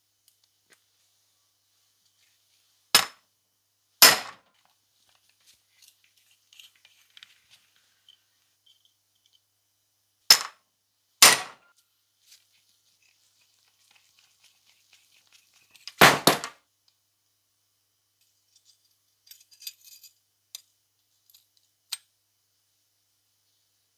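Hammer striking a hand impact driver set on a seized, rusted screw in a hammer drill's housing, to break it loose: sharp metal blows, two a second apart, then two more, then a quick double blow, with light metallic clicks between. Near the end there are a few small clinks as the rusty part is worked free.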